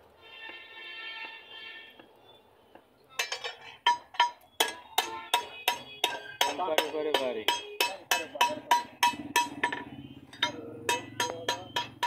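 Blacksmith's hand hammer striking steel on an anvil: a fast, even run of metal-on-metal blows, about three a second, each with a short ring, starting about three seconds in.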